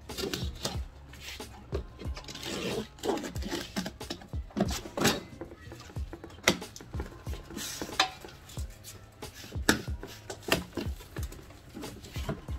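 A cardboard shipping carton being opened: a box cutter slitting the packing tape and the flaps being handled, an irregular run of scrapes, rustles and knocks of cardboard.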